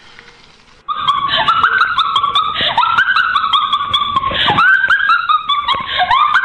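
A man's high-pitched, squealing laughter: a run of loud falling shrieks one after another, starting about a second in.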